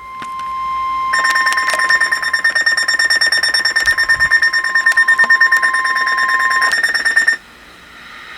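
NOAA Weather Radio's steady 1050 Hz warning alarm tone, the signal that a warning message follows. From about a second in, a weather radio receiver's loud, rapidly pulsing alarm beep sounds over it, about five beeps a second, and both stop abruptly about seven seconds in.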